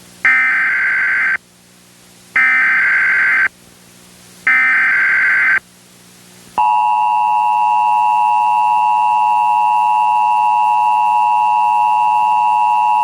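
Emergency Alert System tones in the style of a TFT encoder. First come three bursts of SAME header data, about a second each with about a second's pause between them. About a second after the third burst, the steady two-tone EAS attention signal begins and holds. A faint steady hum lies underneath.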